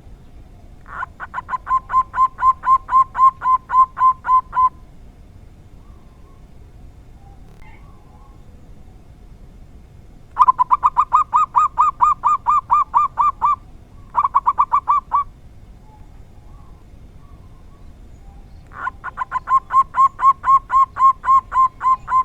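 Zebra dove (perkutut) cooing in three bouts of rapid, evenly repeated coo notes, about five or six a second, each bout lasting three to four seconds with pauses of several seconds between. The last bout is still going at the end.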